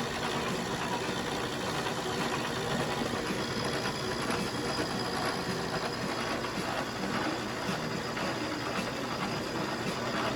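Milling machine running steadily with the cutter working metal, a continuous machining noise without a break.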